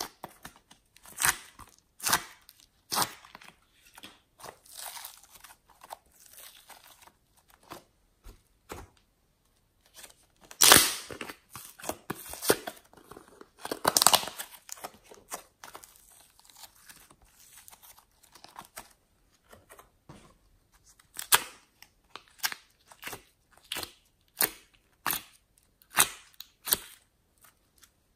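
Hands handling a clear plastic tub of rainbow-layered soft clay. The tub crackles and clicks, and the clay makes tearing sounds as it is pulled apart, in irregular sharp bursts with short pauses. The loudest bursts come about 11 and 14 seconds in.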